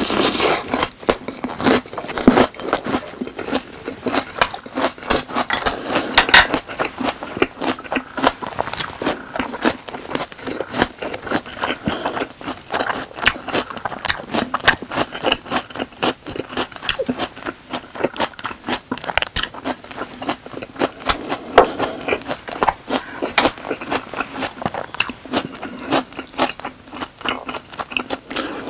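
Close-miked eating sounds: biting and chewing Goobne Volcano boneless chicken and rice, a dense run of crisp crunches and wet mouth clicks.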